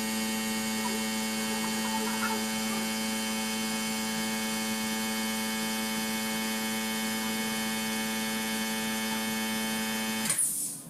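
A steady electrical or machine hum with many overtones, holding one pitch, which stops abruptly with a short burst of noise near the end.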